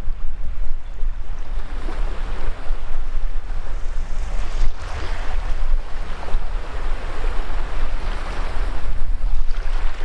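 Small waves washing up over a sandy shore: the hiss of the surf swells and eases a few times. Underneath is a low, gusting rumble of wind on the microphone.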